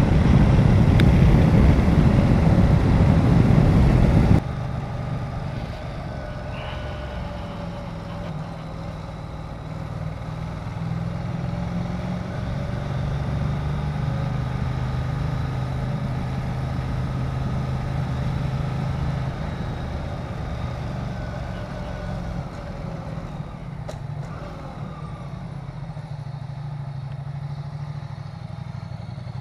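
Wind noise buffeting the microphone at road speed for the first few seconds, then a sudden cut to a Ducati Diavel motorcycle engine running steadily at low speed. Its low drone swells a little in the middle and eases toward the end.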